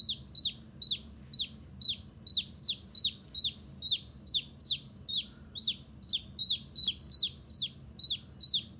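A newly hatched baby chick peeping loudly and without pause, about three short, high, falling peeps a second. These are the distress peeps of a chick being held and handled.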